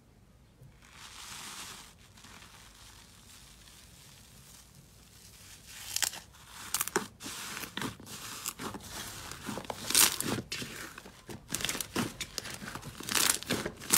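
Foamy slime being dug into, stretched and pressed by hand, giving dense crackling and popping with sharp clicks from about six seconds in. There is a brief soft hiss about a second in.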